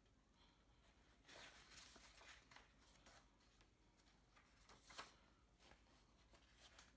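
Faint paper rustling as the pages of a toy's instruction manual are handled and turned, with a cluster of rustles about a second in and a sharper one near five seconds.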